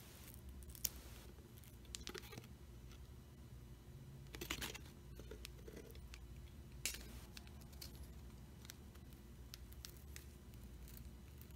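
Scattered sharp clicks and short scrapes of a plastic prying tool and a business card working under a smartphone's glued glass back cover, separating the heat-softened adhesive.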